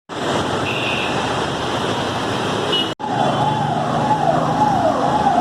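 Steady road traffic noise, then, after an abrupt cut about three seconds in, an emergency vehicle siren wailing: a tone sweeping down and back up over and over, about three sweeps every two seconds, over traffic and engine noise.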